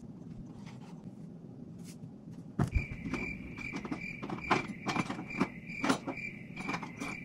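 Cricket-chirp sound effect: a steady, pulsing chirr with rapid clicks that starts abruptly about two and a half seconds in, after faint room noise.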